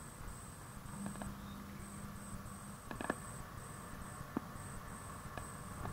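Train carriage interior as the train pulls slowly out of a station: a low rumble with scattered sharp clicks and creaks. A faint high-pitched tone keeps breaking off and returning, and a low hum sounds for about two seconds starting about a second in.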